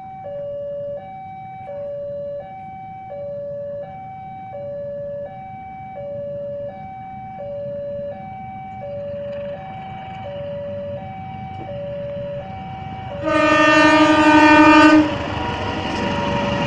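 Railway level-crossing warning alarm sounding a two-tone alternating signal that switches about every 0.7 s, while an approaching diesel-hauled passenger train adds a growing rumble. About 13 seconds in, the locomotive's horn blasts once for nearly two seconds, the loudest sound, followed by the rumble of the train passing.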